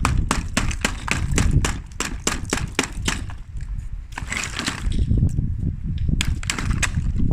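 Rapid sharp clicks and taps, several a second, over a steady low rumble, with a brief scraping patch about four seconds in.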